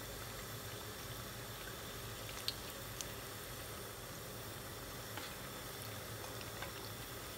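Yeast doughnuts deep-frying in hot oil in a pan: a steady sizzling and bubbling. A few light clicks come from a metal slotted skimmer touching the pan as the doughnuts are turned.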